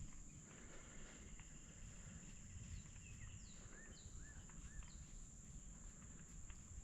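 Faint outdoor ambience: a steady high-pitched insect drone, with a few short bird chirps about halfway through over a low rumble.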